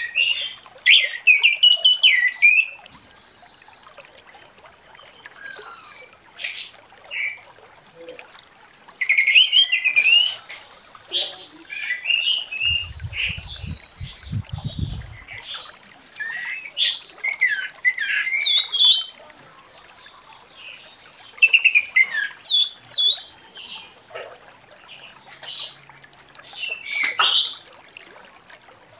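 Orange-headed thrush in full, loud song: phrase after phrase of quick, varied high whistles and chattering notes that slide up and down in pitch, with short pauses between phrases.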